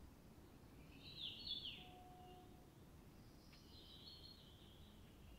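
Faint birdsong: a bird's short high phrases, the loudest about a second in and a longer one from almost four seconds in, over a faint low background hiss.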